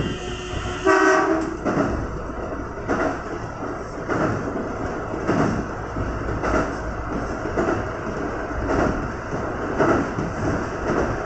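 Kintetsu 1030-series electric train sounding its horn, one short pitched blast about a second in. Then steady running noise, with the wheels thumping over rail joints about once a second.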